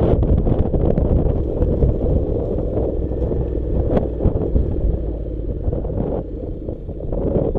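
Strong wind buffeting the microphone over the low rumble of a Honda NC700's parallel-twin engine and tyres on a gravel track, with occasional sharp clicks of loose stones, one about four seconds in.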